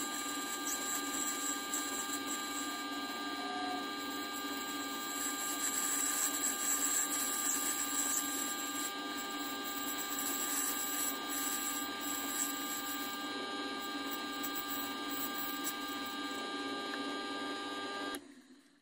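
The 130-year-old Strube lathe running, its spinning chuck and drive giving a steady whine, while the cutting tool turns a taper on a brass pen part with a high scraping hiss that is strongest in the middle. The sound cuts off suddenly just before the end.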